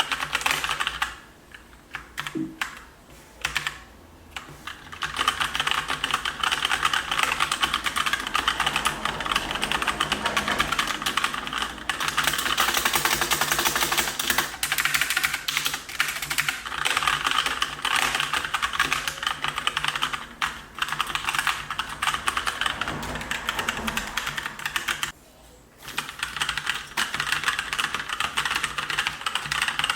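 Typing on an IOGEAR HVER Pro mechanical keyboard with brown switches: a fast, dense run of key clacks, broken by a few brief pauses.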